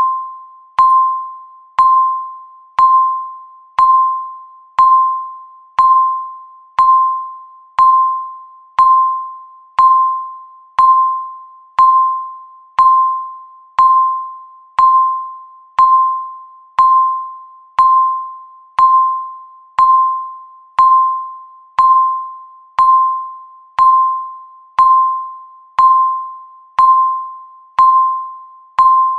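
Countdown timer beep sounding once every second, each a single high chime-like ding that starts sharply and rings away before the next one.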